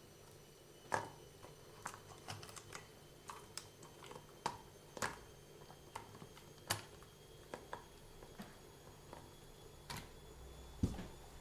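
Irregular light clicks and taps of small plastic and metal RC car parts and tools being handled and set down on a bench, with one heavier knock near the end.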